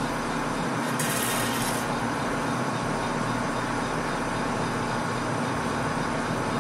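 Metal lathe running with its four-jaw chuck spinning, a steady motor and gear hum. A short hiss about a second in.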